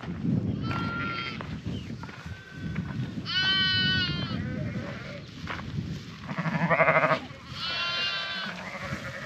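Dorset ewes and lambs bleating, about four separate calls. Several are high and drawn out, and one deeper, quavering bleat about seven seconds in is the loudest. It is typical of ewes and lambs calling to find each other, with a low steady rumble underneath.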